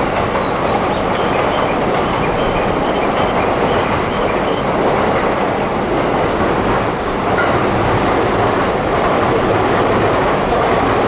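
Shinkansen train moving along the platform, a steady, even train noise with no clear rise or fall.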